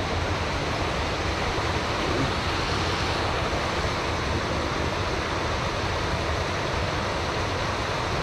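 Steady rushing of water below a dam, a continuous even wash of noise with a low rumble underneath.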